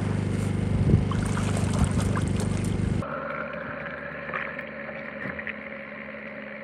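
A steady low motor hum with wind noise at the ice hole. About three seconds in it switches abruptly to a quieter, muffled recording from the underwater drone's own camera, where a steady motor whine runs.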